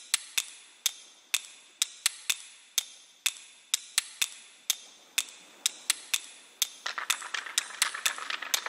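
A run of sharp, hard clicks, about three a second at uneven spacing, each dying away quickly. About seven seconds in, a denser rattling clatter joins them.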